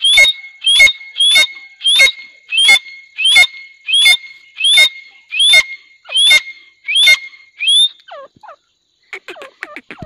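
Grey francolins calling: a steady series of about a dozen loud, shrill calls, each rising at the end, roughly one every two-thirds of a second. The series breaks off near eight seconds, and about a second later a rapid run of softer, lower notes begins.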